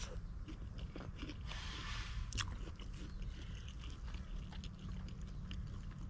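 Close-miked eating of soft montong durian flesh: biting and chewing with many small wet mouth clicks, a brief rustle about a second and a half in and a sharp click a little later, over a low steady hum.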